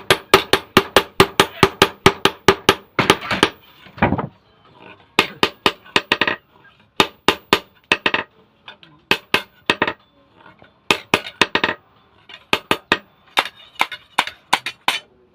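Hand hammer striking metal in a blacksmith's forge work, stamping and finishing: a fast run of about five ringing blows a second for the first three seconds, then short groups of blows with brief pauses between them.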